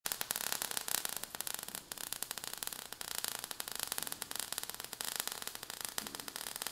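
Quiet, dense crackling and hissing, a sound effect of showering sparks with no pitch or rhythm to it.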